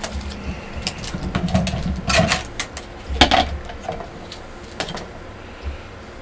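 Handling noise: a series of sharp clicks and knocks as small objects from an unboxing are picked up and moved, loudest a little after three seconds in and fading out after about five seconds.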